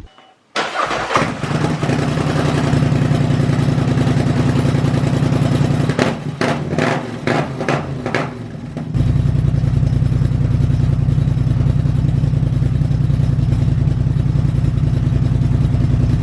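Polaris Sportsman 850 ATV's twin-cylinder engine starting through a Big Gun Evo U exhaust with its quiet insert fitted, then running. It gives a few sharp bursts between about six and eight seconds in, then settles into a louder steady run from about nine seconds.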